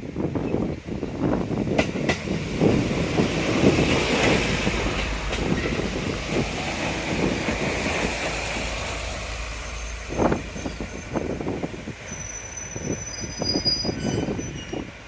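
A JR Kyushu train running through a station, a steady rumble broken by repeated wheel knocks. Thin high wheel squeal comes in during the last few seconds.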